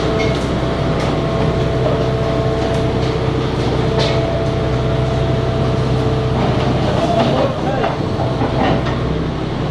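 Steady drone of heavy machinery running at a construction site, with several held hum tones. Voices talk faintly over it near the end.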